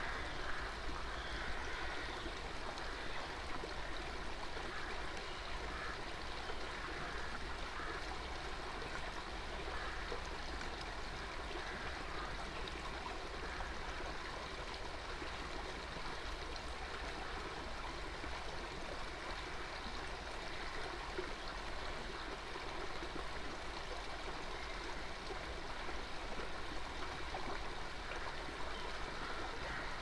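A shallow woodland stream running over small waterfalls and rocks: a steady, unbroken babble of flowing water.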